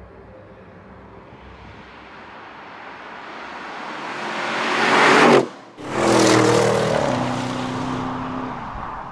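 Audi RS 6 Avant C8's twin-turbo V8 approaching at speed, its engine and tyre noise building to a peak about five seconds in and then cutting off abruptly. It comes back at once with a clear engine note that slowly fades as the car drives away.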